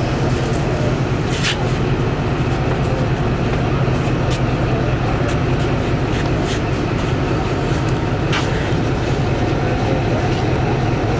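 ZCU-20 diesel-electric locomotive's engine idling with a steady low rumble, heard close up at the coupler end, with a few brief clicks over it.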